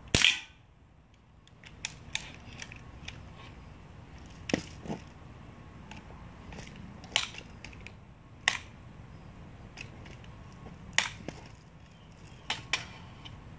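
BB gun firing: a series of short, sharp snaps at irregular intervals, the loudest right at the start, some coming in close pairs, with fainter ticks between.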